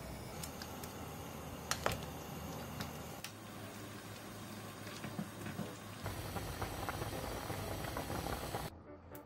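A pot of dakgaejang, Korean spicy chicken soup, boiling and bubbling in a stainless steel pot on a gas burner, with a few sharp clicks. The sound drops away suddenly near the end.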